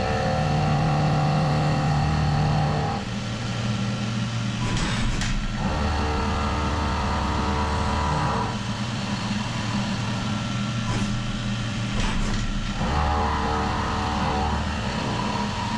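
CNC machining centre milling the outside diameter of a turned part with an indexable milling cutter, the part turned on a rotary index table. A pitched cutting tone rises out of the steady machine noise in three stretches, about three seconds each, as the cutter engages the work.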